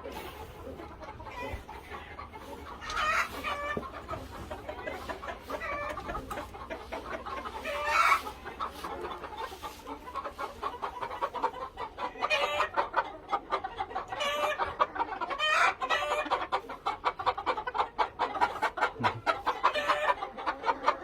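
A flock of game chickens clucking steadily, with a few longer calls from roosters crowing; the loudest call comes about eight seconds in.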